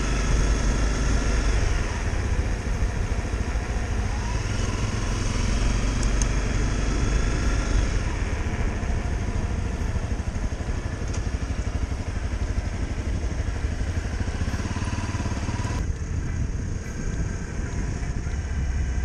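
Motorcycle engine running while riding, with its pitch rising and falling as the throttle opens and closes. The higher hiss drops away abruptly about sixteen seconds in.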